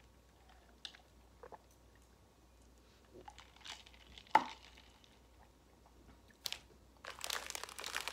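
Plastic jelly bean bag being handled as the candies are put back into it: a few faint clicks and one sharper tap about four seconds in, then steady crinkling of the bag in the last second.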